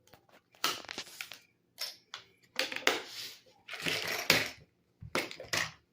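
Clicking and clattering of small screws and a screwdriver being handled against the vacuum's plastic housing, in several short bursts, the loudest about four seconds in.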